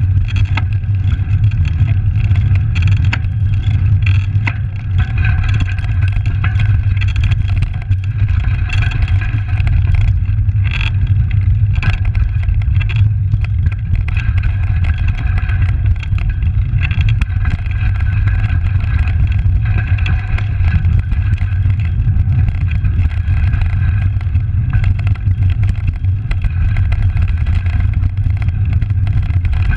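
Bicycle riding noise on a rough trail: steady low rumble of wind on the microphone and tyres on the broken pavement, with frequent small rattles and clicks from bumps.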